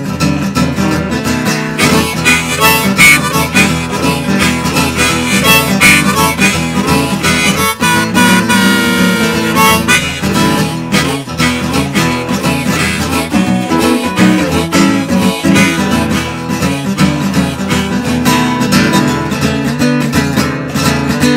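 Blues harmonica solo on an A harp played cross harp over a strummed acoustic guitar in E, with a long held harmonica note about halfway through.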